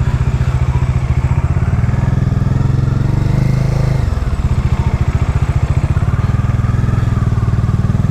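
Motorcycle engine running at low road speed, with a steady, fast train of firing pulses. The engine note dips briefly about four seconds in.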